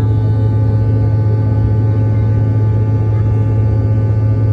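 Jet airliner's engines droning as heard inside the passenger cabin in flight: a loud, steady low hum with several fainter steady tones above it.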